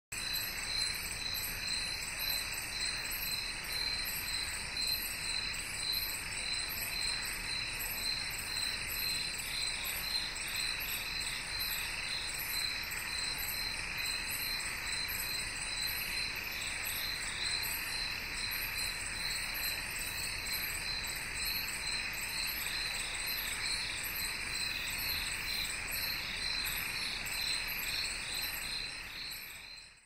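A steady chorus of insects chirping with fast, even pulses, high-pitched and unbroken, over a faint hiss. It fades out at the very end.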